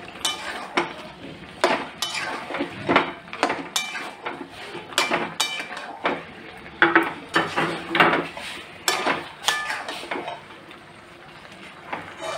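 Metal spatula scraping and knocking against a metal kadai while stirring thick chicken curry. The strokes come irregularly, some with a short metallic ring, and pause briefly near the end.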